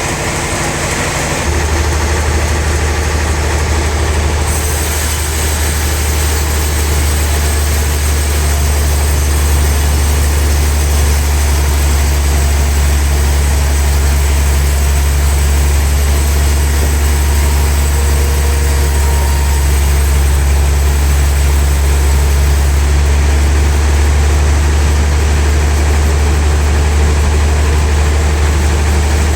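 Sawmill saw machine running steadily with a deep, constant hum, a hiss above it that gets brighter about four seconds in.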